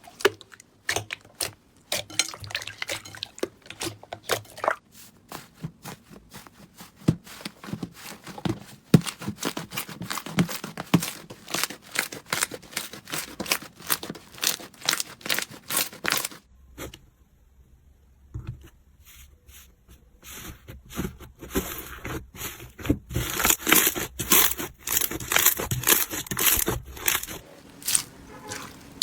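Slime being pressed and worked by hand, giving a fast, uneven run of small crackles and pops. They stop briefly a little past halfway, then come back denser and sharper.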